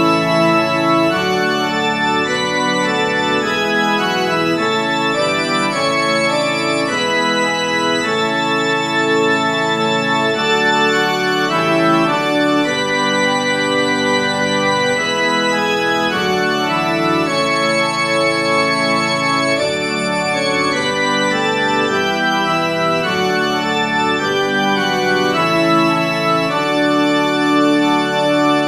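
Organ music: full sustained chords, changing every second or so.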